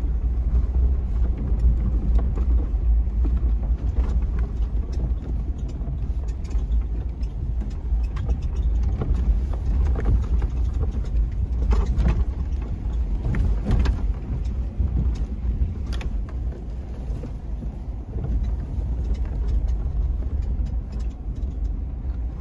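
Car interior while driving over a rough dirt road: a steady low rumble of engine and tyres, with scattered small knocks and rattles from the bumps.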